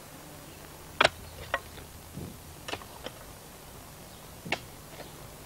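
Mattock blade striking into the ground while digging out Japanese knotweed roots: a handful of sharp, irregular knocks, the loudest about a second in and another near the end.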